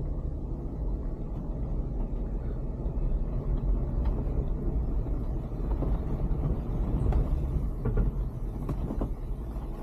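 Vehicle driving, heard from inside the cab: a steady low engine and road rumble, with a few faint knocks or rattles in the second half.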